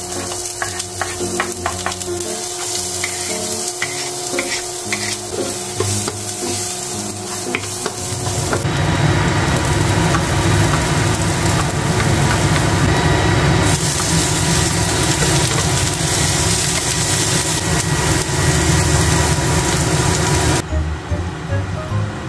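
Chopped onion and garlic frying in oil in a nonstick pan, stirred with a spatula, with scattered spatula clicks at first. The sizzling grows much louder about eight seconds in and cuts off suddenly near the end.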